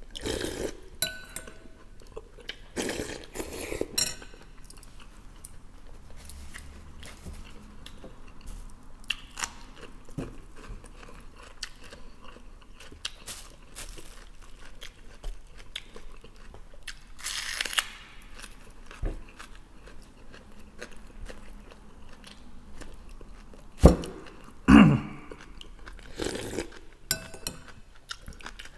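A person eating borscht off a spoon close to the microphone: chewing and sipping from the spoon, with the metal spoon clinking against the bowl now and then, loudest near the end.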